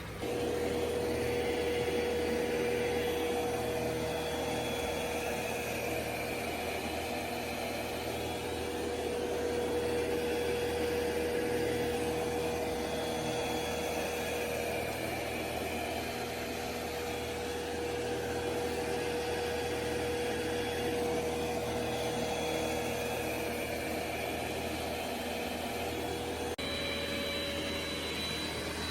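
Robot vacuum's suction motor running steadily, a constant whine over even machine noise; the whine steps up in pitch and a faint high tone joins near the end.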